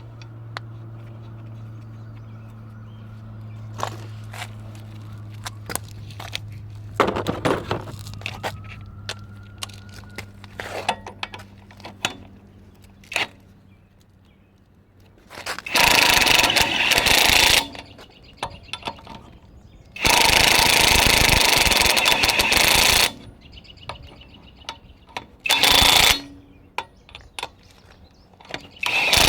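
Impact wrench run in loud bursts on wheel lug nuts: one about a second and a half long, a longer one of about three seconds, then two short ones near the end. Between them come clinks and clicks of tools, with a steady low hum in the first half.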